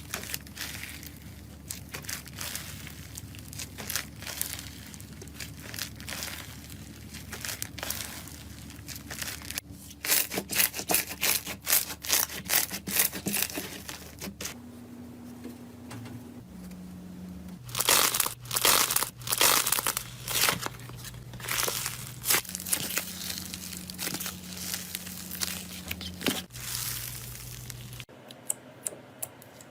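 Slime being squeezed and poked by hand, making a run of sticky crackles and pops. The popping comes in louder bursts about ten seconds in and again a few seconds later.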